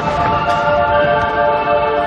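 Music with long held notes playing over the continuous low crackle and rumble of a large fireworks display, with a faint burst about half a second in.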